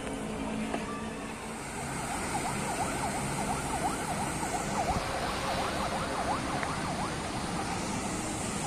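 An emergency-vehicle siren in a rapid yelp, its pitch sweeping down and up about two to three times a second. It sounds over a steady wash of outdoor city noise, starting about two seconds in and fading out near the end.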